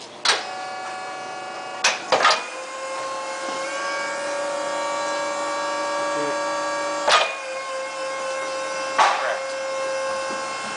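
Electric forklift's hydraulic pump motor whining steadily as the three-stage mast raises the empty forks. Sharp clicks come about five times, and the whine steps slightly higher in pitch a few seconds in.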